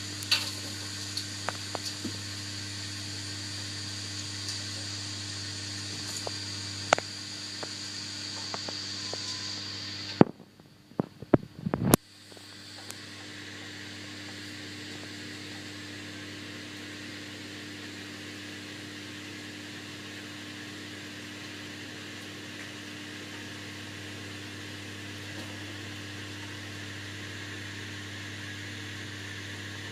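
Washing machine running with a steady hum. A few sharp knocks come about a third of the way through, with a brief drop in the hum, and then the steady running carries on.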